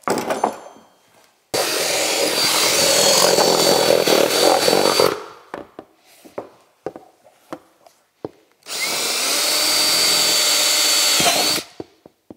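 Handheld power drill boring holes through a plastic ski skin. It runs twice, for about three and a half seconds and then three seconds, with light knocks and handling noises in between.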